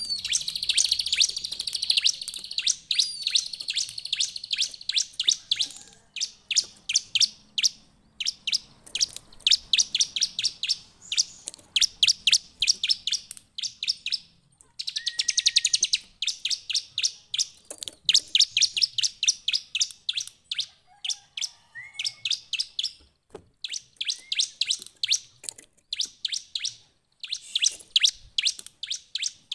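Bar-winged prinia (ciblek) singing: rapid strings of sharp, high chirping notes in loud phrases a few seconds long, separated by short pauses. Now and then there is a brief rising whistle.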